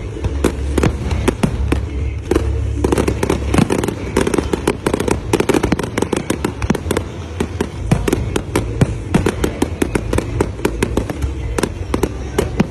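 Aerial fireworks display: a dense, continuous barrage of shell bursts and crackling, many sharp pops a second over a steady low rumble.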